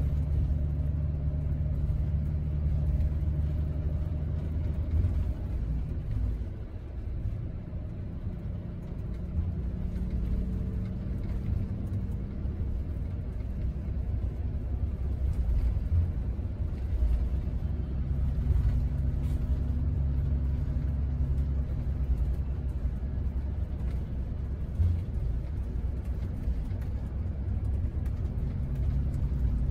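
Scania double-decker coach's diesel engine and road noise heard inside the upper deck: a steady low drone. It eases off about six seconds in and builds up again later on.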